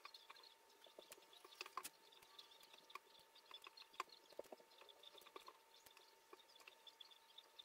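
Faint, scattered light taps and clicks of foam-board jigsaw pieces being picked up, set down and pressed into place on a wooden tabletop, over a faint steady high tone.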